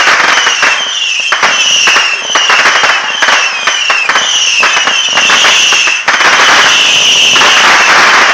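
Fireworks going off with dense, continuous crackling and a high whistle that repeats about every two-thirds of a second, held longer near the end.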